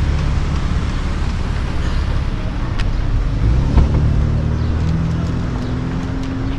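A motor vehicle's engine running close by: a steady low rumble with an engine hum that rises slightly in pitch in the second half, and a single brief knock about four seconds in.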